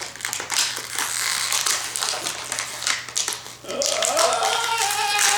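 Quick clicks and crinkles of small plastic toy figurines and a toy scooter being handled.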